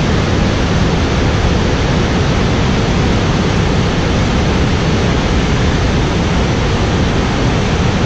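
Shoshone Falls: the steady rush and roar of a large waterfall, an even wash of falling water with no breaks.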